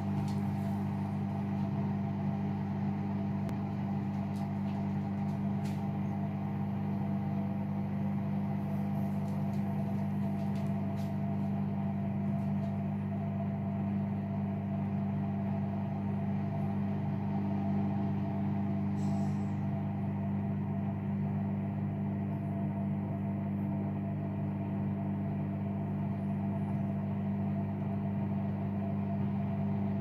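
Hoover All In One washer-dryer running with a steady, even hum while its drum turns slowly full of foam. The sound goes with sudslock, where the machine holds back from a fast spin because of too many suds.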